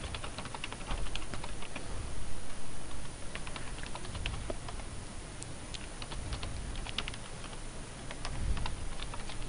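Typing on a computer keyboard: irregular, scattered keystrokes as a short phrase is typed.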